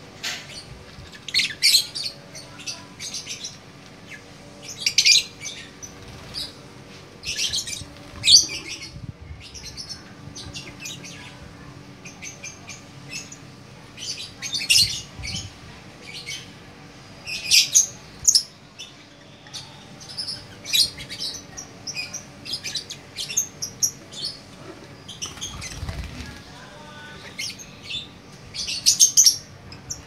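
Lovebirds chirping and chattering in short, high-pitched bursts every second or two.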